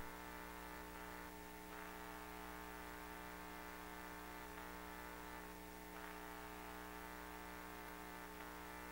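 Faint steady electrical hum made up of several steady tones, one higher tone standing out.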